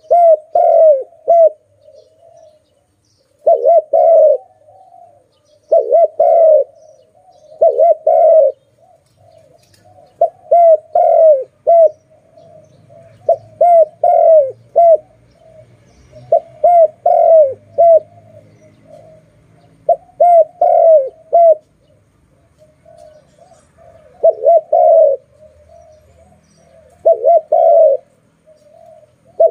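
Spotted dove cooing loudly: repeated short phrases of two to four coos, one phrase every two to three seconds, with a pause of a few seconds about two-thirds of the way through.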